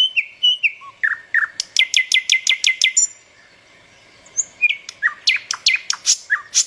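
Small birds chirping. A quick run of sharp chirps that sweep downward in pitch comes about two seconds in, then there is a short lull and the chirping picks up again toward the end.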